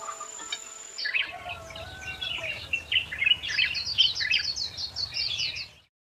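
Birds chirping in quick, busy runs of short high calls over a faint low rumble, with a held music tone dying away in the first second. All sound cuts off abruptly just before the end.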